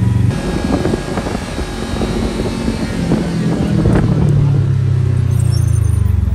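Side-by-side UTV's engine running while driving over rough off-road ground, with rattling and knocks from the vehicle. The engine drone grows louder about four seconds in.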